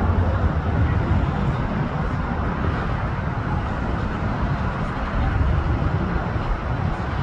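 Steady rumble of a business jet's two rear-mounted jet engines at climb power just after takeoff, heavy in the low end.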